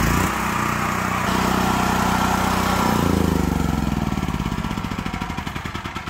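Westinghouse WGen7500 generator's single-cylinder engine running steadily after its remote start; about halfway through, its pitch drops and it winds down, running slower and fainter, as it is shut off.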